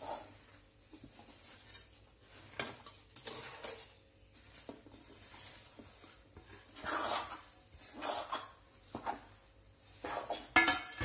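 Metal ladle and spoon scraping and clinking against a metal kadai while stirring a thick mixture of coconut and jaggery syrup, in irregular strokes with short pauses between them.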